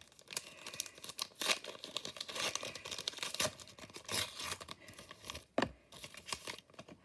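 Crinkling and tearing of the Bakugan packaging as the cards are pulled out, in irregular crackles and rustles with a sharper click near the end.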